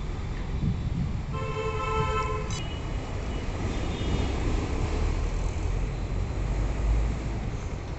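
A horn sounds once, for about a second, about a second and a half in. It is cut off by a sharp click, over a steady low rumble.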